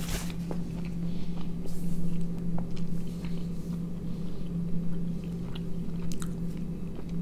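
A person chewing a mouthful of soft tortilla wrap close to the microphone, with small wet mouth clicks, over a steady low hum.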